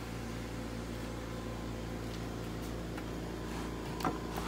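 Steady low hum of a running kitchen appliance or fan, with several steady tones. A sharp click about four seconds in, and a fainter one near the end.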